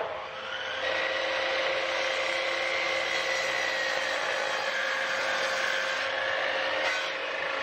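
Mitre saw running and cutting through a length of treated softwood timber. A steady motor whine gives way about a second in to the sawing of the blade through the wood, which eases off near the end as the cut finishes.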